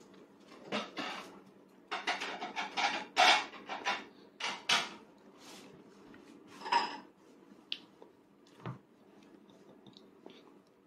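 Dishes and cutlery clattering: a quick run of clinks and knocks for a few seconds, then a few single knocks near the end.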